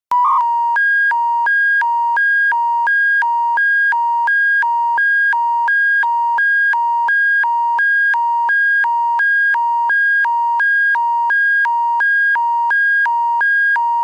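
Alberta Emergency Public Warning System alert tone: a loud electronic signal alternating steadily between a lower and a higher pitch, each held about a third of a second, signalling that an emergency bulletin is about to be broadcast.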